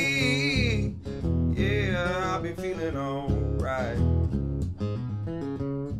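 Acoustic guitar strumming chords while a man sings long, wavering held notes between the lines of a slow song.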